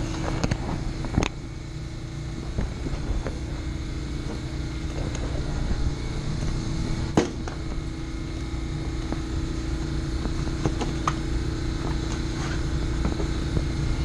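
Mammoth HVAC unit running with a steady mechanical hum and a constant low tone. A few sharp knocks and clicks sound over it, the loudest about a second in and about seven seconds in.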